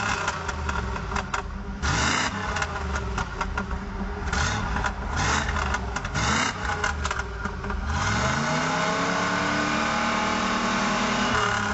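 1988 Camaro IROC-Z's 5.7-litre L98 TPI V8 with catalytic converter removed, revved through the exhaust. Several quick throttle blips each fall back toward idle. About eight seconds in, a longer rev climbs steadily, is held high for a few seconds, then drops back near the end.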